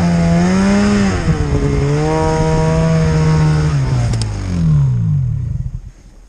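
Two-stroke engine of a Polaris Assault mountain snowmobile running hard in deep snow, rising in revs a couple of times. Then the revs fall away and the engine goes quiet near the end as the sled tips onto its side.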